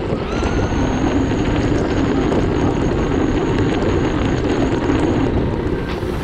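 Team Associated Reflex DB10 buggy's Reedy 3300kV brushless motor whining steadily as it drives across beach sand on paddle tires, heard from a camera riding on the car, with the tires churning the sand. The pitch rises briefly a moment after the start as it speeds up.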